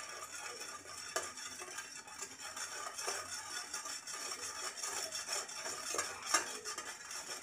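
A spoon stirring warm water in a small stainless-steel bowl, scraping and clinking steadily against the metal as yeast, salt and sugar dissolve.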